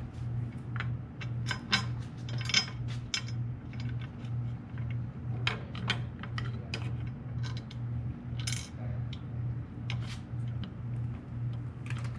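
Small metal hardware clinking and clicking: bolts, flat washers and push nuts handled and set onto a steel plow mounting plate lying on a metal tool cart, in irregular short clicks. A steady low hum pulsing about twice a second runs underneath.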